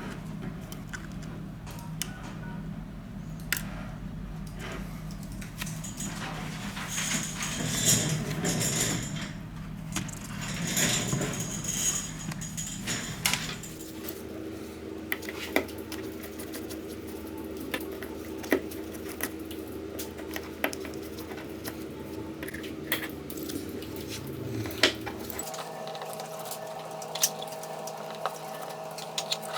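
Small metal repair tools clicking, tapping and scraping against iPhone 7 parts, over a steady electrical hum. The hum changes pitch suddenly twice.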